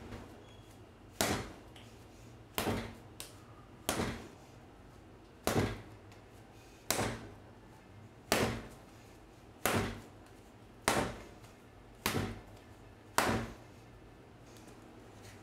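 Bread dough slapped down hard onto a countertop, about ten times at a steady pace of roughly one slap every second and a half: slap-and-fold kneading.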